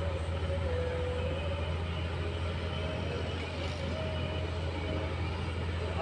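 Diesel engines of a working excavator and bulldozer running steadily, a low drone with a thin wavering whine above it.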